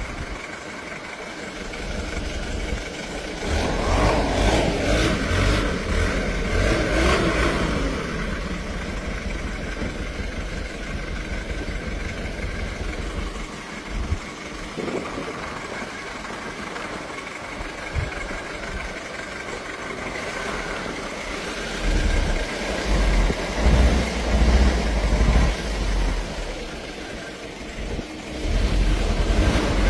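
Old jeep engines running. About four seconds in one revs up, its pitch falling away over the next few seconds. Later, from about 22 seconds, deep low rumbling swells and fades several times.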